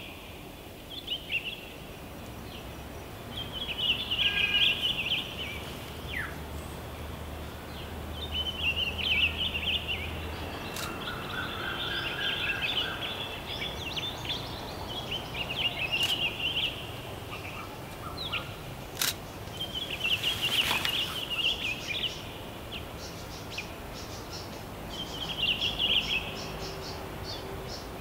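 Wild birds singing and calling in woodland: short bursts of high twittering song recurring every few seconds over a background hush. A single sharp click about two-thirds of the way through.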